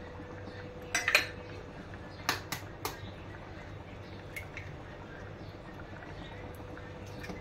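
Steel kitchen utensils clinking against an aluminium cooking pot and steel bowls: a quick cluster of clatter about a second in, three sharp clinks around two and a half seconds, then lighter taps as eggs are cracked on the rim of a small steel bowl. A steady low hum runs underneath.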